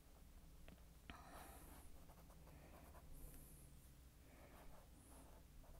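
Faint scratching of a black pen drawing short strokes on drawing paper, a few strokes with pauses between them and a couple of light ticks as the tip touches down.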